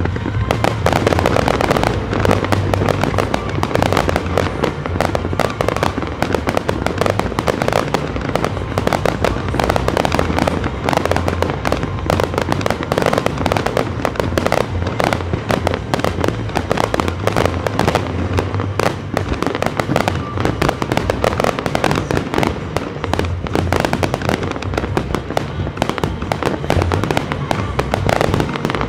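Fireworks barrage (a Japanese star mine), with shells launching and bursting in quick succession, many cracks and bangs every second without a break. Music plays along under the explosions.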